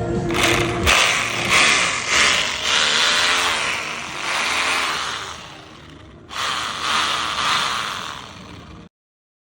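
Makita 2451 rotary hammer drill running, its motor and mechanism surging several times in the first few seconds as it is worked, then easing off. A cut about six seconds in is followed by a second run that stops abruptly shortly before the end.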